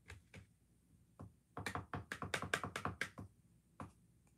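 Hands tapping and clicking on small hard objects on a desk: a few single taps, then a quick run of about a dozen light taps over a second and a half, and one more near the end.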